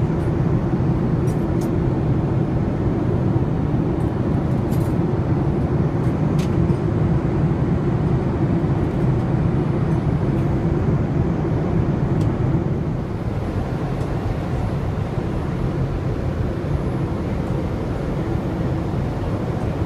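Steady cabin noise of a Boeing 787 in flight at altitude: a low, even rush of airflow and engine drone. It drops slightly in level about two-thirds of the way through.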